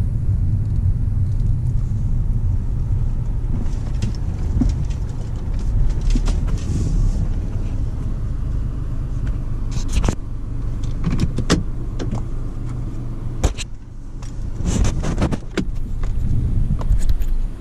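Car cabin noise while driving: a steady low road and engine rumble, with scattered clicks and knocks, most of them in the second half.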